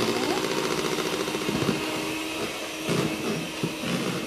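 Electric hand mixer running steadily, its beaters whipping eggs, sugar and SP emulsifier into a thick, pale sponge-cake batter in a bowl.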